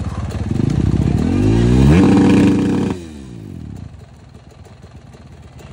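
Dirt bike engine revved once: the pitch climbs over about a second, holds briefly, then the throttle is shut about three seconds in and the engine falls back to a lower idle.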